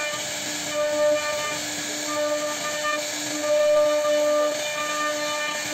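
CNC router spindle running with a steady high whine as its bit carves a relief pattern into a wooden panel, over a hissing cutting noise; the whine breaks off briefly every second or so.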